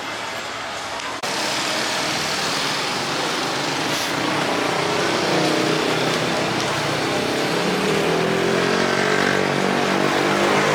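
Motor vehicle engine and road noise, steady, with a sudden jump in level about a second in.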